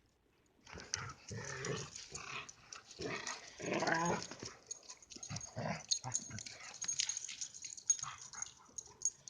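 Pet dogs vocalising as they play, a run of rough, throaty sounds with a short pitched whine about four seconds in.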